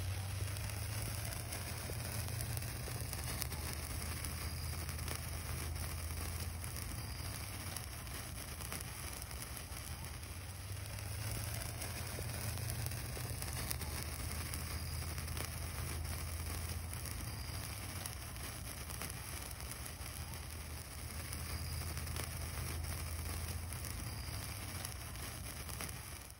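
A heart-shaped sparkler burning with a steady fizzing crackle of sparks, over a low rumble that swells and fades.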